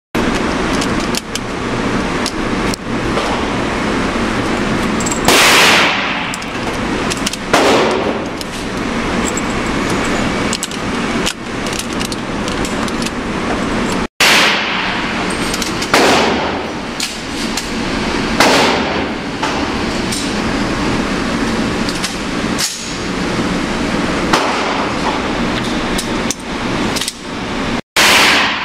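Gunshots echoing through an indoor shooting range, about half a dozen loud shots at uneven intervals, each with a long echo, over a steady background hum. Between the shots come small clicks of cartridges being pressed into a rifle magazine.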